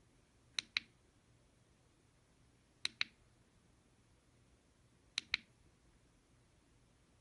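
Push-button switch of a rechargeable flashlight clicked three times, about two seconds apart, each a quick pair of sharp clicks.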